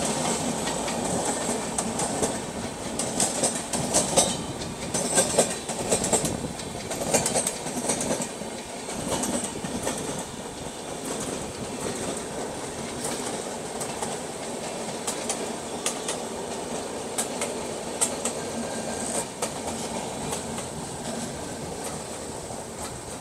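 Moving MEMU electric train heard from its open side, wheels clacking over rail joints in irregular clusters over a steady rolling rumble. The sound gradually grows quieter towards the end.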